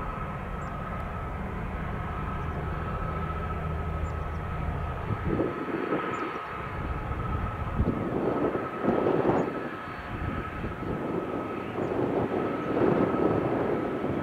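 Airbus A350-900 jet engines (Rolls-Royce Trent XWB) at takeoff thrust during the takeoff roll: a steady high whine over a rumbling roar. From about five seconds in the roar comes in surges and grows louder.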